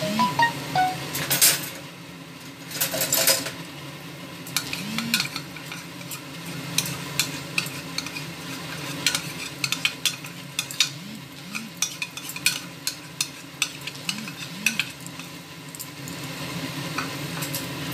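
A metal spoon scraping and clinking against a bowl as fresh cream is emptied into a pan of simmering curry, in irregular clicks with a couple of longer scrapes early on. A low sizzle from the pan runs underneath.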